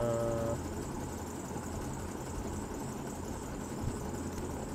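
Steady low background hum with hiss, with a short steady tone lasting about half a second at the very start and a single faint click about four seconds in.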